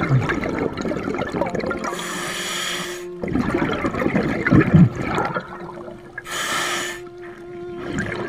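A scuba diver breathing through a regulator: a hissing inhale about two seconds in, then a stretch of exhaled bubbles crackling, then another hissing inhale past the six-second mark.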